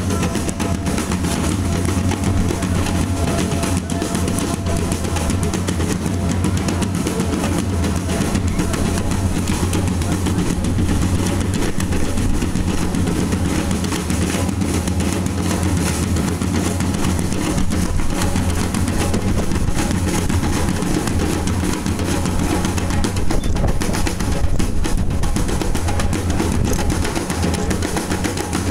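Live drumming from a group of hand drummers playing a steady, continuous beat.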